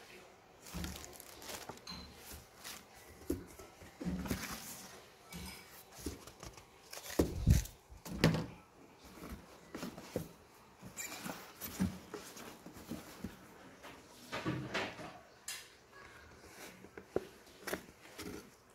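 Unboxing handling sounds: a plastic bag crinkling and a cardboard box rustling and knocking as things are lifted out, in irregular bursts. The loudest knocks come about seven to eight seconds in.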